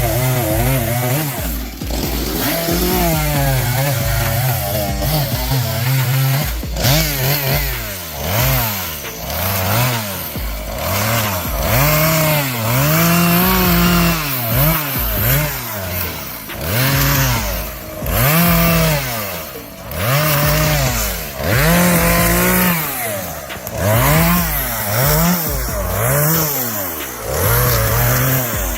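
Chainsaw engine revving up and down over and over as it cuts wood, its pitch rising and falling every second or two.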